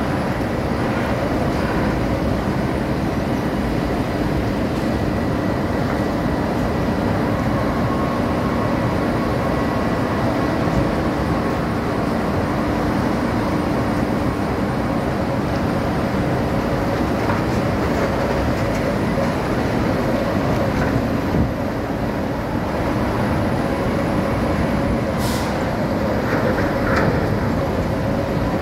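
Arjes Titan 900 diesel-hydraulic twin-shaft shredder running steadily under load, grinding through waste wood, with a few sharp cracks of wood breaking in the shafts. A wheel loader's engine runs alongside as it tips wood into the hopper.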